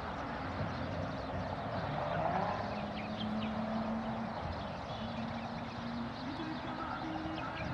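Steady wind and lapping canal water, with a few faint, short bird chirps.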